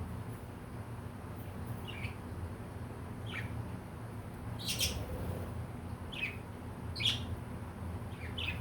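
Pet budgerigars chirping: short chirps that fall in pitch, about one every second, the loudest about halfway through and again near the end, over a steady low hum.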